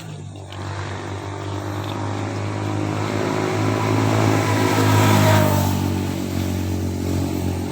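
A motor vehicle engine passing by, growing louder to a peak about five seconds in and then fading away.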